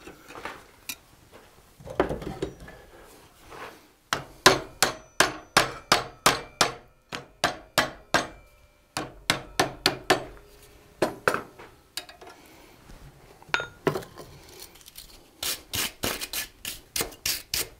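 Hammer blows on a hot forged ram's head held in a vise, straightening it: runs of sharp, evenly spaced strikes about two to three a second with short pauses, and a quicker run of strokes near the end.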